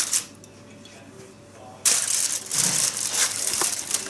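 Aluminium foil crinkling as it is pressed down over a bowl. It stops for about a second and a half, then the rustling starts again suddenly and goes on.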